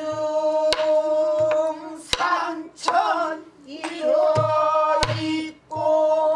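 A woman sings in pansori style, holding long, ornamented notes that bend and shift in pitch. She beats time on a buk barrel drum: sharp stick strokes land every second or so, and low palm thumps fall on the drumhead between them.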